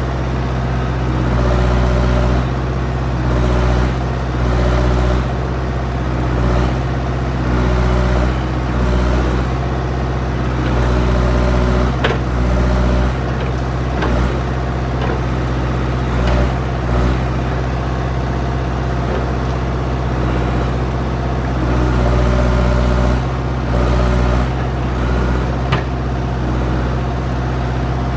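Old backhoe's engine running under working load, swelling and easing every second or two as the bucket digs out tree stumps, with a few sharp knocks.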